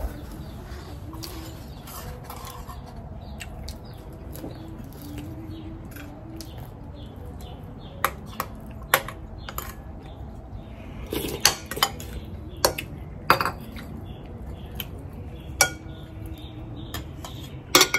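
Kitchen utensils and dishes clinking and knocking: scattered sharp clinks, mostly in the second half, over steady low background noise.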